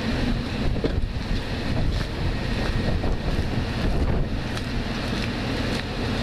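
Gusty wind buffeting the camera's microphone: a steady, loud, low rumble with no other distinct sound.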